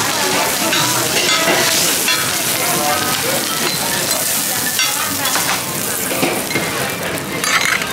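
A roti frying in oil on a large flat steel griddle, sizzling steadily, while metal spatulas scrape and tap on the griddle as it is pressed and turned.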